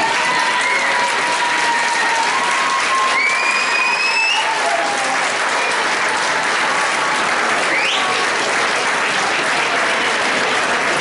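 Audience applauding steadily and loudly, with a few voices calling out over it.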